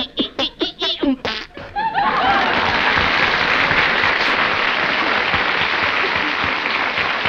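Live studio audience breaking into sustained applause and laughter about two seconds in. Before it, a quick run of short, choppy vocal blurts in Daffy Duck's voice, his mock 'electric organ' playing.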